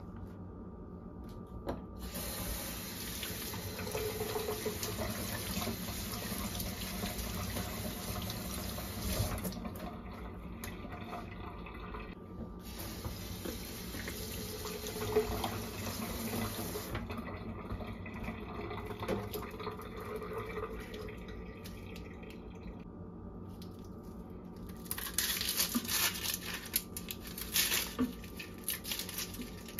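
Kitchen faucet running into a stainless steel sink as a bell pepper is rinsed by hand, the flow dropping and stopping a few times along the way. Near the end the water comes back louder with sharp, irregular scrapes and splashes as an onion is peeled with a knife under the tap.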